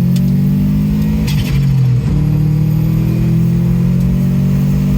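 EJ205 turbocharged flat-four in a GC8 Subaru Impreza pulling under throttle, its note rising steadily. About a second in, the engine note dips and there is a brief fluttering chatter: turbo flutter, compressor surge as the throttle closes. The engine then pulls again, rising in pitch.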